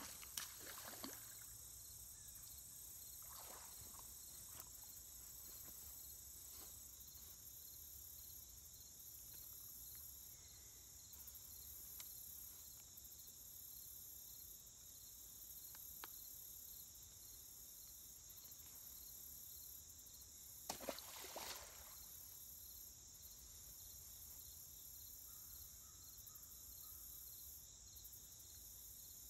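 Steady high-pitched insect chorus of crickets. A hooked fish splashes at the surface near the start, and a louder splash comes a little after twenty seconds in, as the fish goes back into the water.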